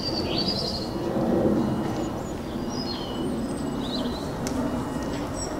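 Low steady rumble of a distant approaching Class 37 diesel locomotive, with birds chirping briefly over it.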